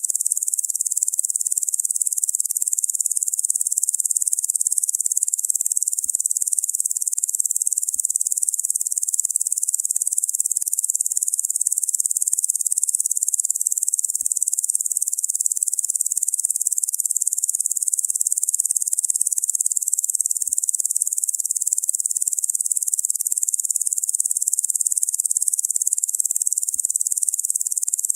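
Locusts making a steady, high-pitched, hissing insect drone without pauses.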